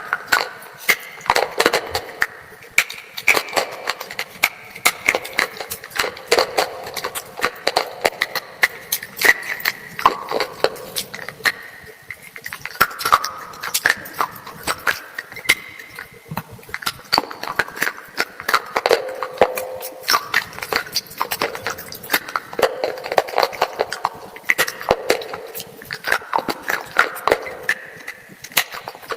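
Dry, brittle crunching of a black slate-like item being bitten and chewed close to the microphone: a dense run of sharp cracks and snaps, with brief lulls between bites.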